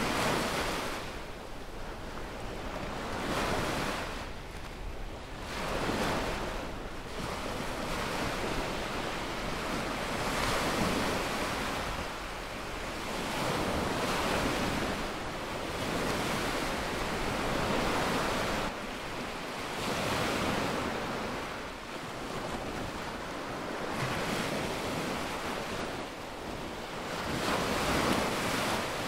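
Small waves breaking and washing up a sandy beach. The surf swells and fades every few seconds and is loudest near the end.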